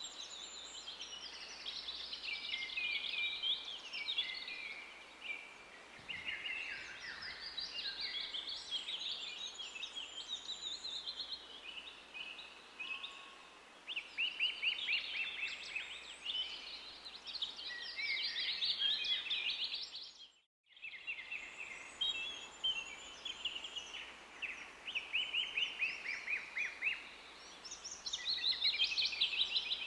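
Songbirds singing: an almost unbroken run of high chirps and rapid trills. The sound drops out completely for a moment about two-thirds of the way through.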